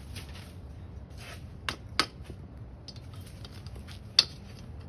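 Metal tools clinking against metal: three sharp strikes with a short ring, two close together about two seconds in and a louder one just past four seconds.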